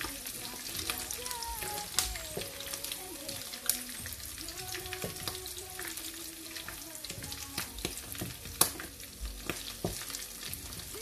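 Chicken pieces sizzling in oil and sauce in a non-stick frying pan as they are stirred with wooden spatulas, with a few sharp clacks of wood against the pan.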